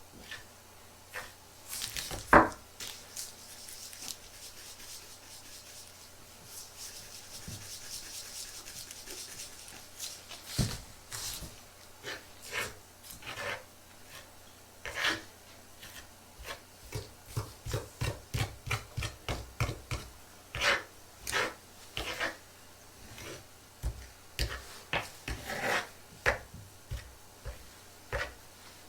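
Close-up hand work on small objects: rubbing and scraping with scattered light taps and clicks, and a quick run of rapid taps in the middle.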